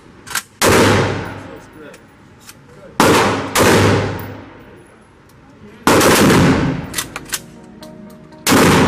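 Five gunshots at irregular intervals, two of them about half a second apart, each followed by a long echo in an indoor shooting range.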